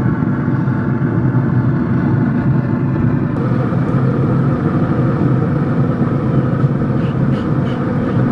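Steady mechanical hum and rumble, with a few light clicks near the end.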